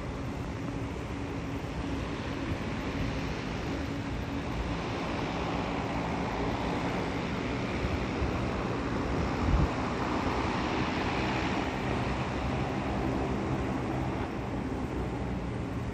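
Steady background of distant engines and traffic: a low hum and rumble under a wash of noise that swells a little through the middle. A brief thump sounds about halfway through.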